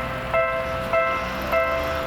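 Japanese railroad crossing warning bell ringing its repeating two-tone ding, about every 0.6 seconds, three strikes here.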